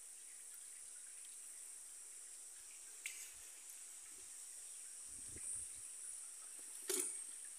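Steady high-pitched insect chorus, with two brief taps, the louder one near the end.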